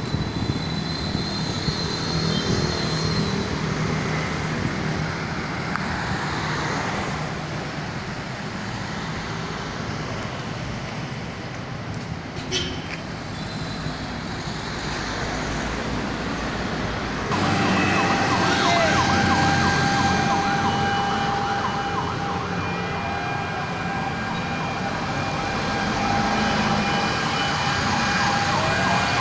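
City street traffic noise from passing cars and motorbikes. About two-thirds of the way in, a siren starts suddenly and keeps sounding, with steady held tones and a fast warble over the traffic.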